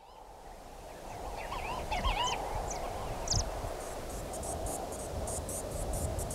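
A few short chirping bird calls about two to three seconds in, over a steady background hiss. From about four seconds on, insects stridulate in rapid, high pulses.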